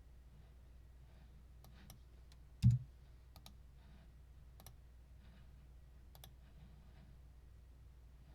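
Scattered light clicks at uneven intervals, with one louder low thump between two and a half and three seconds in, over a steady low hum.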